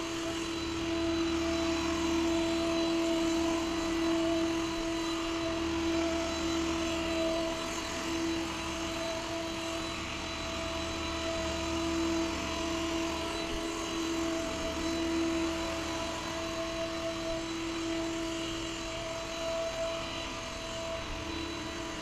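Yeedi K760x robot vacuum running on a hard laminate floor: a steady motor whir with a constant whine that drops out briefly a few times.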